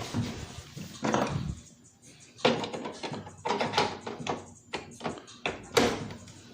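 A series of taps and knocks from handling the parts of a small electric fireplace heater during assembly, the loudest about two and a half seconds in and again near the end.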